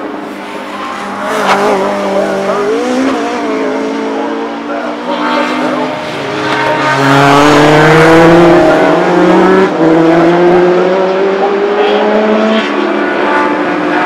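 Several racing saloon cars passing one after another, their engines revving hard and climbing in pitch through the gears. Loudest about seven to ten seconds in.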